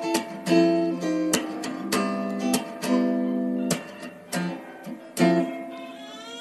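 Background music: an acoustic guitar strumming chords, with a strum every half second or so.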